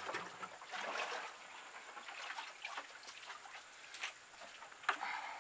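Muddy water sloshing and trickling as a plastic bucket is scooped full from standing water. A sharp knock comes right at the start, with scattered small clatters and a louder splash near the end.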